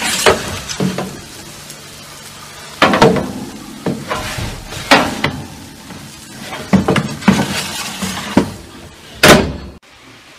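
Oven door opening and a metal baking tray being pulled out of a gas cooker's oven and handled, with a string of sharp metallic clatters and scrapes, the loudest near the end.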